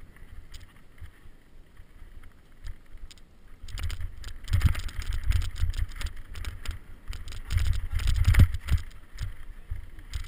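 Mountain bike ridden down a rough dirt singletrack: gusty wind rumble on the microphone with rattles and knocks from the bike over bumps. The rumble and clatter get heavier about four seconds in and again around eight seconds, then ease off near the end.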